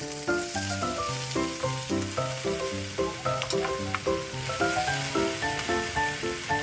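Food sizzling as it fries in a pan, a steady hiss, under background music of short, bouncy plucked notes.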